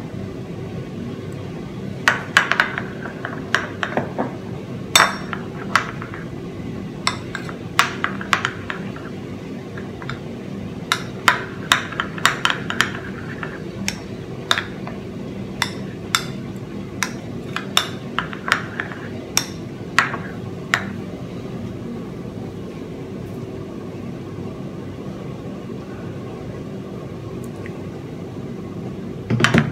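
Metal spoon clinking and scraping against a small ceramic bowl while stirring a thick crunchy peanut butter sauce, in quick irregular strikes that thin out after about twenty seconds. A steady low hum runs underneath.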